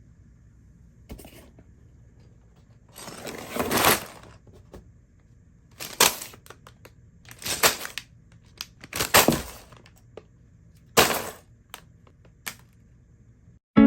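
A building-brick set's packaging being torn open: five rustling, tearing bursts, the first the longest and loudest, with a few light clicks between them.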